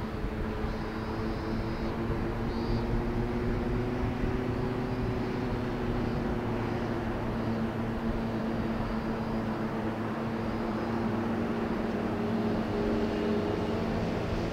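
Distant diesel locomotive working under power as it hauls a sightseeing train away from a station, heard as a steady engine drone that wavers slightly in pitch.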